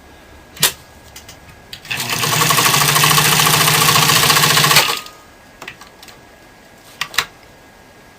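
A Pfaff 230 sewing machine, driven by its 1.3-amp motor, runs fast for about three seconds, stitching straight through five layers of denim without stalling. A few sharp clicks come before and after the run.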